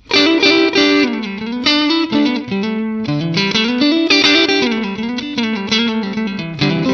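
Stratocaster-style electric guitar played through a Valeton GP200R multi-effects pedal's amp modelling: a continuous melodic phrase of single notes and chords, some notes bent or wavering in pitch.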